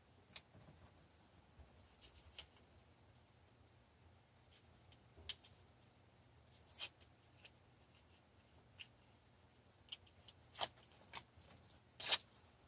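Faint crackles and ticks of tape being pulled off a roll, torn and pressed down over a plastic stencil on paper, with the loudest crackles near the end.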